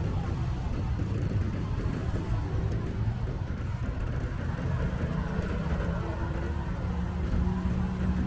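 Road traffic: a steady low rumble of passing vehicles, with a motor vehicle's engine hum coming in about halfway through and holding.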